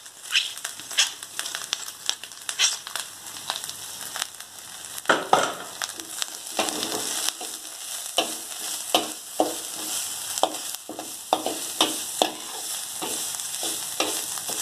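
Pounded chili paste and garlic sizzling as they fry in hot oil in a wok. A metal spatula scrapes and knocks against the pan in repeated stirring strokes, more regular from about halfway in.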